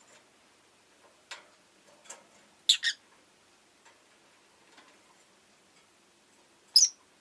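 Rosy-faced lovebird giving short, sharp chirps: a loud double chirp about two and a half seconds in and a single loud one near the end, with a couple of fainter calls before them.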